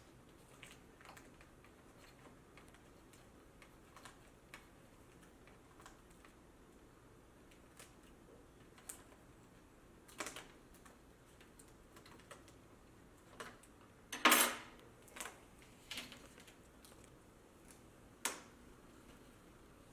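Scattered plastic clicks and taps as a laptop screen bezel is pried off and the LCD panel worked loose, with one louder, longer scrape about fourteen seconds in and a sharp click near the end.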